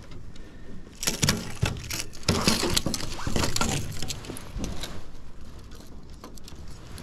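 Footsteps and shuffling on wooden pier planks, with clothing rustling close by: irregular scuffs and knocks, busiest in the first five seconds and quieter towards the end.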